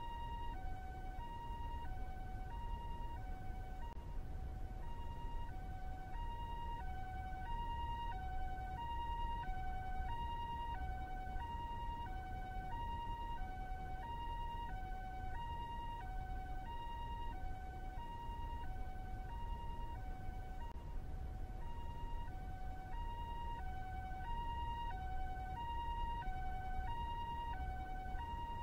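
Japanese two-tone ambulance siren, the 'pee-poh' type, alternating a high and a low note, each held just over half a second, in an even unbroken cycle over a steady low rumble.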